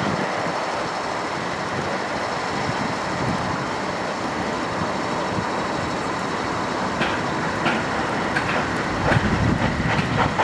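Steam locomotive working slowly over a steady hiss, with evenly spaced exhaust beats coming through about seven seconds in, a little under a second apart.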